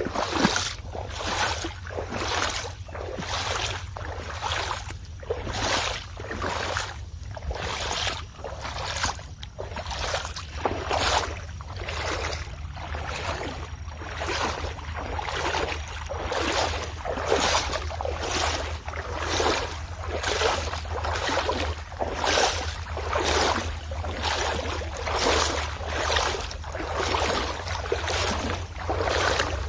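Footsteps wading through shallow swamp water, each step a splash, about three steps every two seconds, with a steady low rumble underneath.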